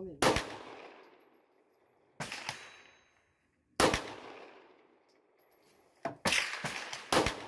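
9mm Luger pistol shots firing Scorpio (STV Group) ammunition. There are single sharp cracks a couple of seconds apart, then several in quick succession near the end, each followed by a fading echo.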